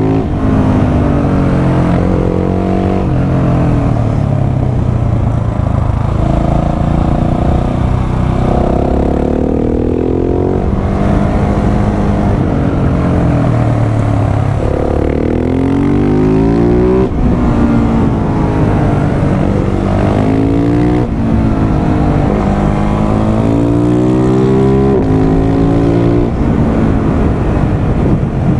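Husqvarna 701 supermoto's single-cylinder engine, heard onboard, accelerating hard through the gears over and over. The pitch climbs with each run and drops at each shift or when the throttle is closed.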